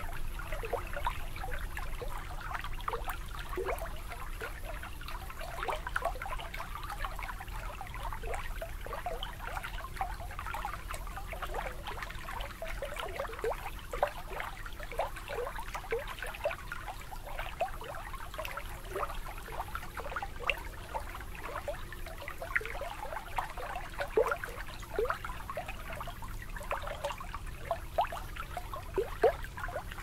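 Water gently lapping and trickling at a shoreline: a continuous, moderate run of soft plinks and gurgles.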